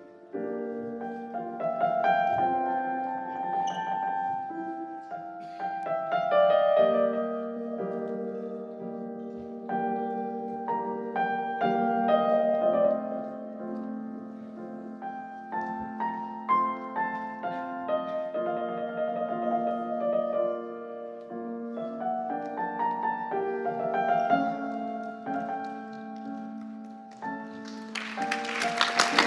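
Piano music playing as a sequence of sustained notes and chords. Applause breaks out near the end.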